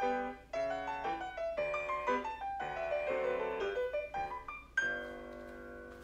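Solo piano music for a ballet barre exercise, a run of notes that ends on a final chord about five seconds in, left to ring and fade.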